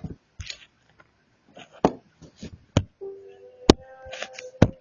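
A handful of sharp clicks and knocks, about five spread over a few seconds, with the two loudest near the end. Under the last two of them runs a faint steady hum-like tone that steps up in pitch once.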